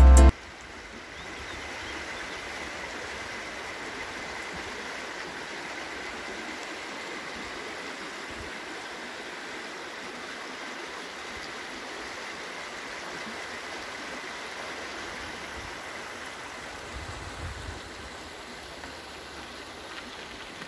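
Small woodland brook running over a shallow stony bed, a steady babbling rush of water.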